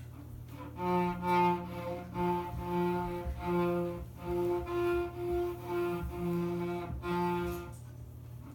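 A small child bowing a cello, playing a simple beginner tune as about a dozen short, separate bow strokes that stay mostly on one pitch with brief gaps between them. The notes start about a second in and stop near the end.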